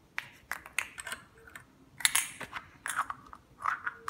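Hollow plastic Easter egg halves being handled and pried apart, making a scattered run of light clicks and taps.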